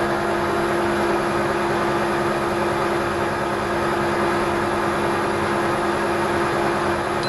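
Metal lathe turning the teeth off a soft iron gear wheel with an indexable carbide tool: steady cutting noise with a steady ringing tone over it. This is typical of the chatter expected from a ring the machinist calls really melodic.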